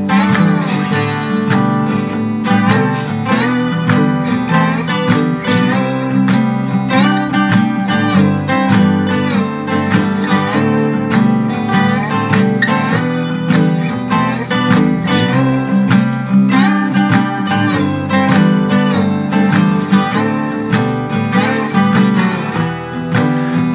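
Background music: an instrumental stretch of a song, guitar-led, with no singing.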